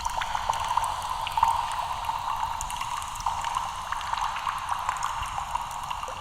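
A steady hiss dotted with many small crackles and ticks, the sound of a liquid, fizz or sizzle-type effect.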